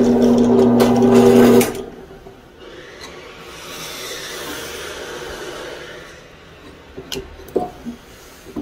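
Drill press motor running with a steady hum, its bit in a wooden handle scale; the hum cuts off abruptly about two seconds in. A quieter hiss follows, with a few light knocks near the end.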